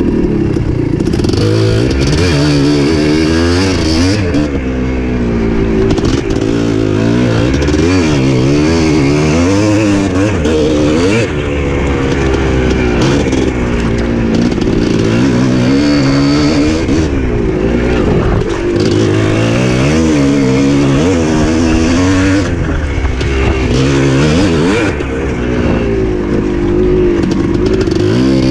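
Dirt bike engine being ridden hard, its pitch rising and falling over and over every second or two as the throttle opens and closes and the gears change.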